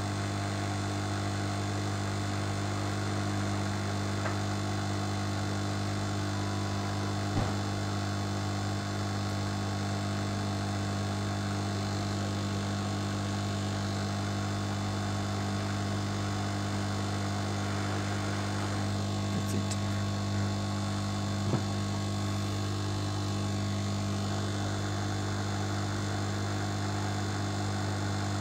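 Hot-air rework station blowing steadily, a constant hum from its blower, while it heats a connector on a circuit board for desoldering. A couple of short light clicks come through, one about a third of the way in and one about three quarters in.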